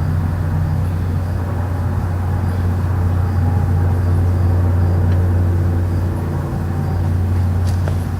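Loud, steady low-pitched hum that holds one deep pitch without rising or falling.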